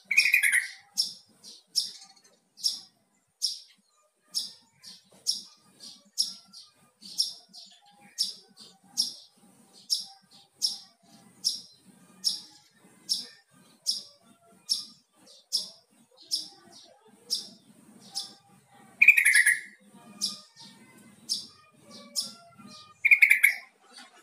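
Yellow-vented bulbul giving three loud, short calls: one right at the start and two near the end. Under them runs a steady series of sharp high chirps, about two a second.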